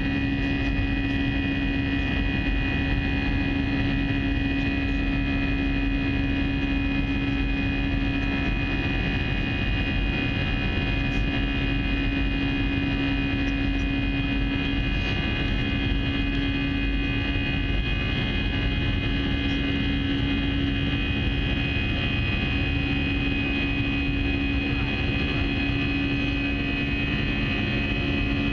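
Steady cabin noise of an Airbus A320 airliner in flight, heard from inside the cabin: a constant engine drone with a strong low hum and several steady high whining tones over a rush of air.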